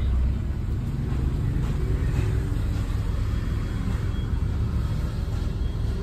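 Steady low rumble of a Suzuki hatchback's engine and tyres, heard from inside the cabin as the car creeps slowly along.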